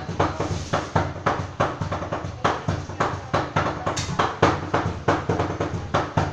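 Cleavers chopping sisig on a chopping board in a fast rhythmic beat, about three sharp knocks a second.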